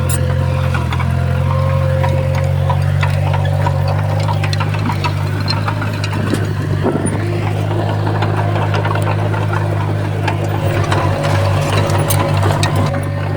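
Diesel engine of a Komatsu crawler bulldozer running steadily, with scattered clicks and knocks over it; the engine note pulses unevenly for a couple of seconds near the end.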